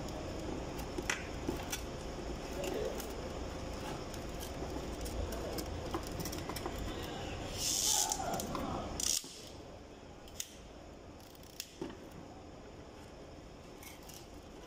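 Small clicks and rattles of plastic and metal parts as a fuel pump assembly is handled and fitted by hand, with a short hiss about eight seconds in. A steady low background hum cuts off about nine seconds in.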